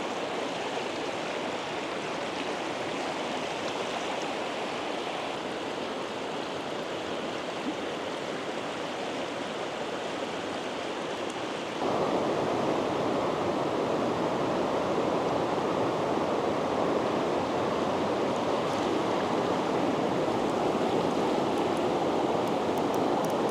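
Mountain river rapids rushing steadily, a continuous hiss of water that suddenly gets louder about halfway through.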